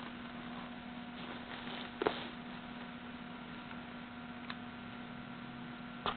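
Steady low electrical hum over a quiet room, with one sharp knock about two seconds in and a fainter click and knock later on.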